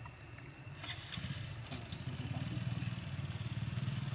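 A small engine running steadily, getting louder about a second in.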